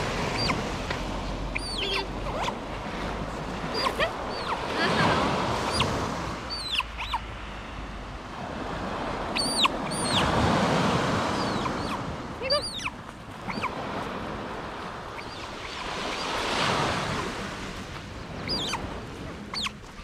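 Surf washing onto a pebble beach in slow swells, over which a pet otter gives many short, high-pitched, falling chirps.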